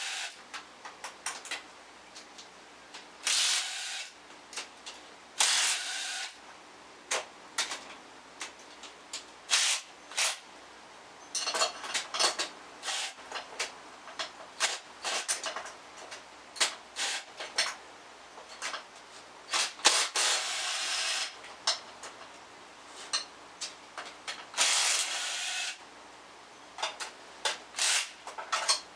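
Hand-tool work on a bare engine: scattered metallic clicks and knocks, with several short bursts of noise about a second long.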